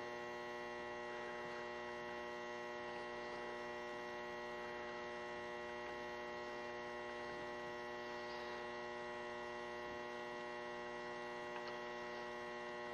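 Steady electrical mains hum with many fixed tones, unchanging throughout, with a faint tick or two near the end.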